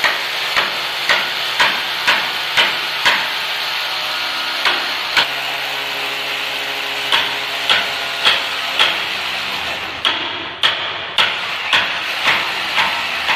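Corded electric drill running steadily as it bores into the stair wall, with sharp knocks coming about twice a second in several runs.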